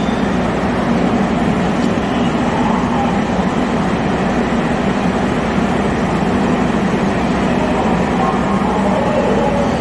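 A Seoul Line 4 subway train standing at the platform gives off a steady hum and a constant running-equipment noise, with no wheel or motor rise.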